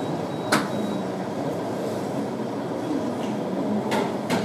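Steady background rumble and murmur, broken by a sharp click about half a second in and two more close together near the end.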